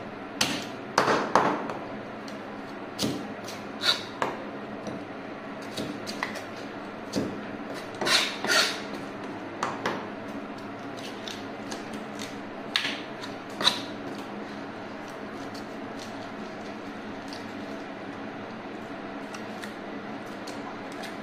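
Kitchen knife cutting, scraping and tapping against a pearl spot fish (karimeen) and the cutting board as the fish is cleaned. The sharp scrapes and knocks come in a run for about fourteen seconds, then thin out to occasional taps over a steady low hum.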